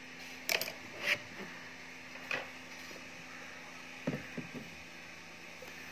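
Scattered light clicks and rustles from hands working small beads and a fine pointed tool on a beaded earring, with a couple of softer knocks about four seconds in, over a faint steady hum.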